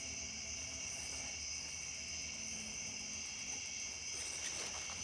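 A chorus of crickets trilling steadily, a continuous high-pitched insect drone that holds an even level throughout.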